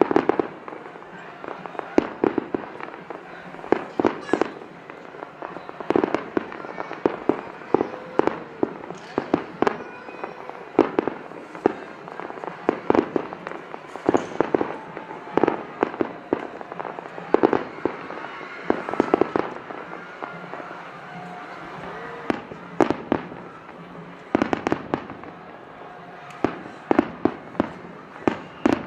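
Aerial fireworks bursting in quick volleys, sharp bangs coming every half second to a second in clusters, with a short lull about two-thirds of the way through. Voices of onlookers are heard between the bangs.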